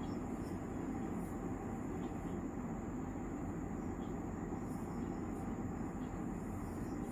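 Steady low rumbling background noise with a faint high-pitched whine above it.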